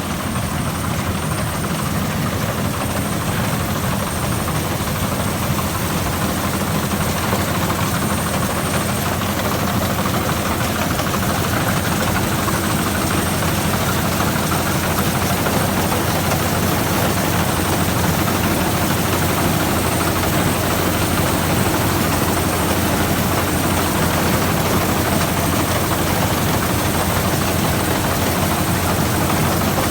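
Rice combine harvester running steadily while harvesting, its engine and machinery making a constant loud drone with no change in pace.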